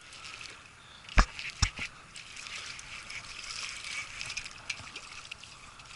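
Two sharp knocks about a second in, then light splashing and sloshing of water as a hooked bass is brought in to the bank.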